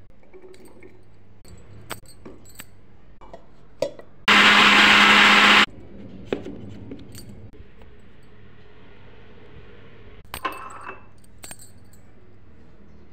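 Electric mixer grinder running in one loud burst of about a second, blending beetroot and cucumber into juice. Light clicks and clinks of the steel jar and a drinking glass come before it and again near the end.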